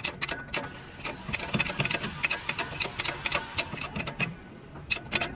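Irregular light metallic clicks and taps, several a second, from tools and metal parts being handled in a truck differential repair.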